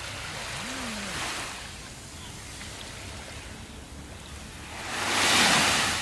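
Small sea waves washing up a sandy beach: a soft wash about a second in, then a louder wave breaking and running up the sand near the end.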